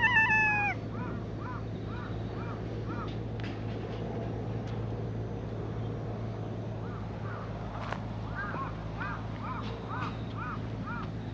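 A cat's high-pitched, drawn-out meow, falling in pitch, right at the start. Softer, short arched calls follow, repeated about three times a second in two runs.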